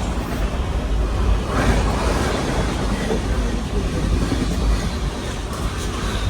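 Dibrugarh Rajdhani Express passenger train running past, a steady rushing rumble of coaches on the track.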